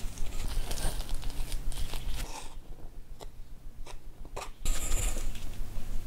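Wooden spoon stirring flour into wet dough in a glass bowl, a dense scraping, crunching texture. A little over two seconds in it drops to a quieter stretch with a few soft ticks while more flour is poured in, and the stirring starts again near the end.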